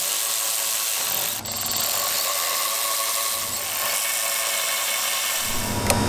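Cordless electric ratchet whirring steadily as it runs a bolt in, with a brief break about one and a half seconds in. It stops shortly before the end.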